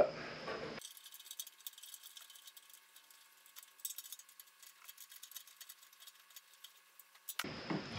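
Faint, irregular light ticks and clicks of hand tools tightening a small hex-head screw and nut on a license plate light bracket.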